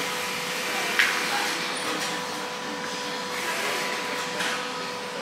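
Steady machine hum with an even hiss and a constant mid-pitched tone, broken by a sharp click about a second in and a softer one later, as a riding hat and small tools are handled at the bench.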